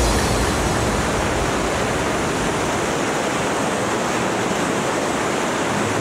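Steady in-flight rush of airflow and engine noise from a Rotax 912-powered microlight, an even, unbroken roar with no distinct engine note standing out.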